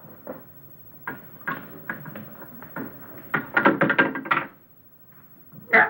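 Scuffling and bumping of a patient struggling in a dental chair during a forceps tooth extraction: a run of short knocks and scuffles, busiest between three and a half and four and a half seconds in, with a sharp loud one near the end.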